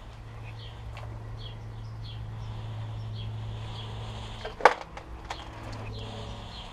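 Small birds chirping in short repeated calls over a steady low hum. About four and a half seconds in comes one sharp crack of debris underfoot, the loudest sound, followed by a few lighter clicks.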